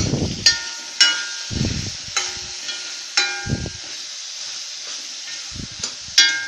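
Sliced radish, shallots and tomato sizzling as they are sautéed in hot oil, with a metal spoon stirring and scraping them around the pan. The spoon strikes the pan about five times, each strike giving a short ringing clink.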